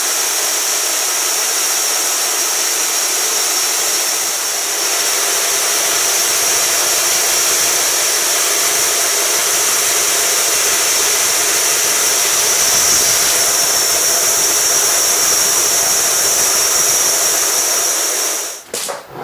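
Homemade band saw mill running and its blade sawing through a thick log: a loud, steady hissing whir. It stops abruptly near the end, with a couple of short knocks.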